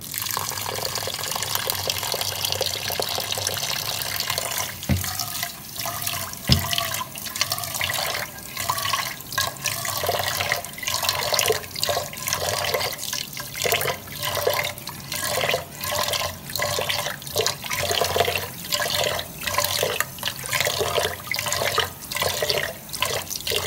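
Tap water pours into a rice cooker's inner pot of glutinous rice while a hand swirls and rubs the grains. Two knocks sound about five and six seconds in. From about ten seconds in, the swishing falls into an even rhythm of about three strokes every two seconds.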